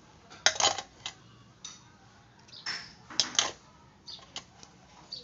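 Metal kitchen utensil clinking and tapping in short rattling clusters: one about half a second in, a louder one near three seconds, and a few single light clicks between.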